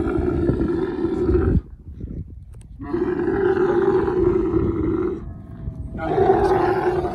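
Dromedary camel giving three long, loud bellowing calls, each a couple of seconds long with a short gap between. It comes during mating and is taken by the onlooker for the female crying out under the big male.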